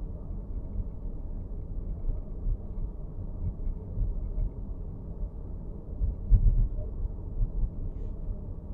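Steady low rumble of driving noise inside a Nissan X-Trail e-POWER, with a few faint ticks about six and eight seconds in: the abnormal dashboard noise.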